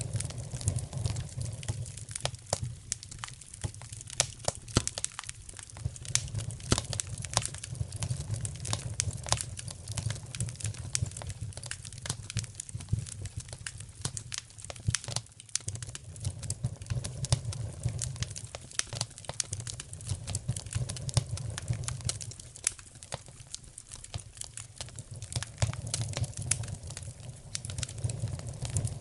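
Wood fire crackling in a fireplace: dense, irregular sharp snaps and pops over a low, steady rumble.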